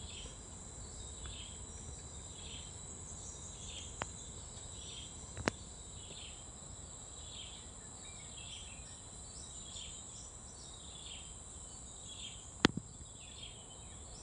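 Field ambience of insects: a steady high drone, with a short chirp repeating about once a second. Three sharp clicks stand out, the loudest near the end.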